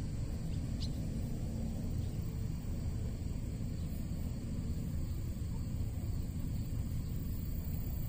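Steady low outdoor rumble with one short, high chirp about a second in.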